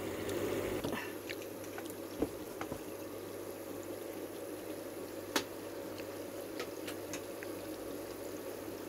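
Sesame-coated glutinous rice balls deep-frying in hot oil: a steady sizzle and bubbling with a few sharp pops, the balls already turning brown.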